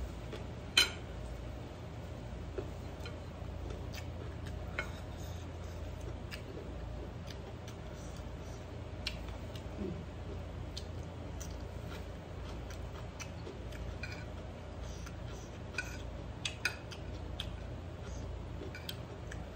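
Metal spoon clinking and scraping against a ceramic plate in scattered light taps while eating, the sharpest about a second in and a few close together near the end, over a steady low hum.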